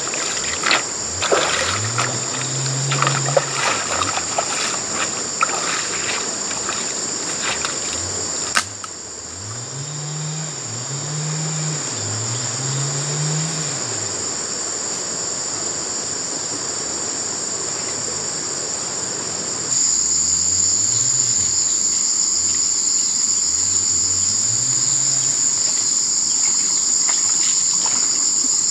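Steady high drone of insects in the stream-side forest, louder after a cut about two-thirds through. Feet splash and slosh through shallow water in the first several seconds and again near the end.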